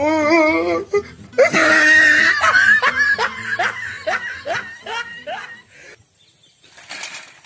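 Hearty laughter: a wavering, drawn-out laugh at first, then a quick run of rising "ha" syllables that fades away near the end.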